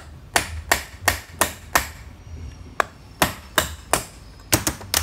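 Hand tool tapping the top of the armature shaft of a Diamond Tool Industries DTI205 core drill motor to drive the armature out of its casing. A run of sharp taps, about three a second, stops briefly near the middle, then a second run follows.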